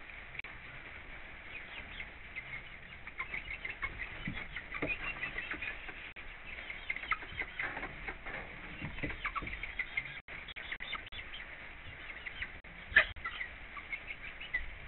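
Hens moving about a coop: scattered pecking and scratching taps in the litter over a faint steady hiss, with one louder sharp tap near the end.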